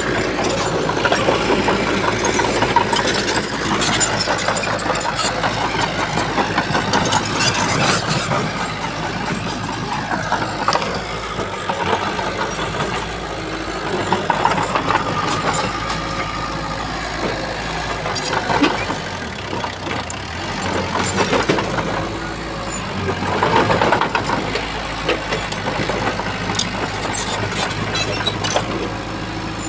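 Diesel engine of heavy earthmoving machinery running under work, swelling and easing several times as the load changes, with scattered clanks and rattles.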